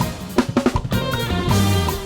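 A live band playing a groove at rehearsal: drum kit with kick, snare and rimshots, over a moving bass line and chords.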